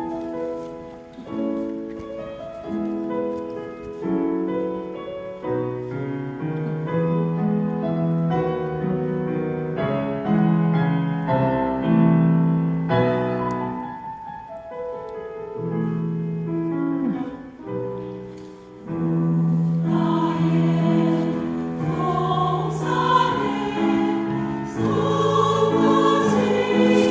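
Mixed choir singing a Korean Buddhist hymn with piano accompaniment, in sustained chords that grow fuller and louder about two-thirds of the way through.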